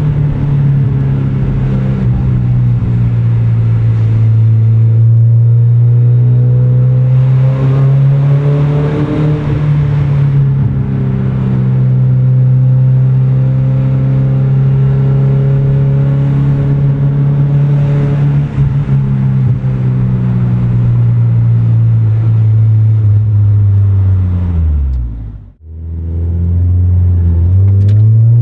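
Mazda Miata 1.6 inline-four running through a FOX cat-back exhaust, holding a steady engine speed for most of the time. Near the end the pitch falls away, the sound breaks off briefly, then the engine note rises again.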